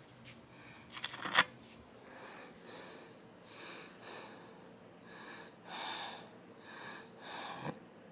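Close-microphone breathing and sniffing through the nose, a soft hiss about once a second, with a short, louder scratchy burst about a second in.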